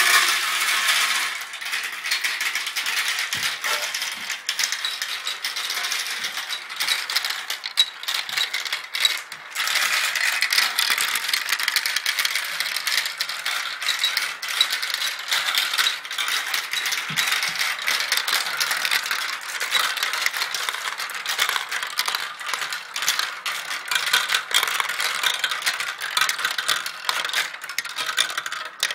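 Marbles rolling and clattering down a marble run: a dense, continuous rattle of many small clicks, thinning briefly about nine seconds in.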